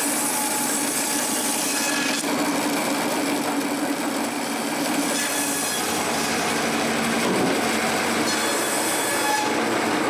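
Homemade wooden bandsaw running steadily with its blade cutting through birch cut-offs, a continuous machine whir with the hiss of the blade in the wood.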